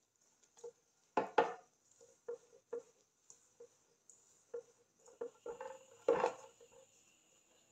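Hand mixing and kneading flour and water into a stiff dough in a stainless steel bowl: scattered soft knocks and taps against the bowl. The loudest are two knocks about a second in and another about six seconds in.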